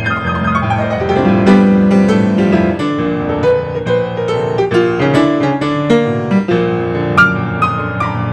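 Solo grand piano playing an instrumental, with busy runs of quick notes over chords.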